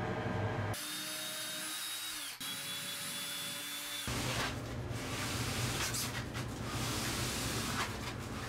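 A cordless drill running with a steady whine that dips in pitch and stops briefly about two seconds in, then runs again. After that comes a stretch of rough, rustling noise with scattered knocks.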